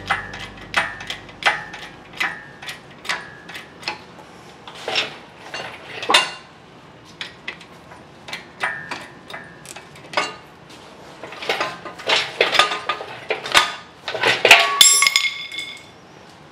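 A string of sharp metal-on-metal clinks and clanks, several ringing briefly, as an engine hoist and its hardware are handled at a truck's engine bay. A louder clattering clang with a ringing tone comes near the end.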